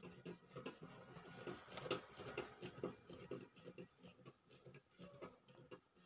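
Screwdriver working a mounting screw of a microwave oven's magnetron: a run of faint, irregular metal clicks and scrapes, with one louder click about two seconds in.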